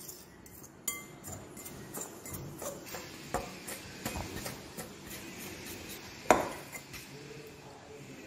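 A metal fork clinking and scraping against a glass mixing bowl while crumbly gulab jamun mix is worked together with milk into a dough, with scattered small clicks and one sharper, ringing clink a little after six seconds.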